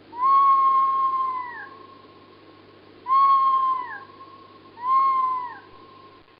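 Recording of a red fox calling three times: each call a clear, steady note that drops in pitch at its end, the first the longest.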